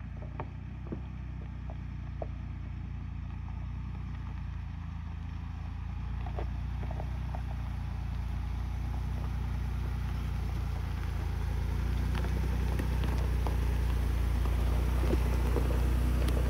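Ford Bronco crawling slowly over a rocky dirt trail toward the microphone: a low, steady engine hum growing steadily louder, with scattered clicks and crunches of stones under the tyres.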